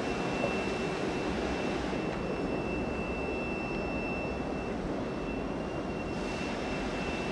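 Steady low rumble of a Bombardier R62A subway train approaching through the tunnel, with a thin, steady high-pitched whine throughout and a little more hiss near the end.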